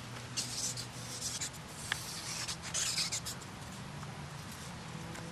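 Kittens' paws scrabbling and rustling on a fabric blanket as they play, in four or five short scratchy bursts over a faint steady low hum.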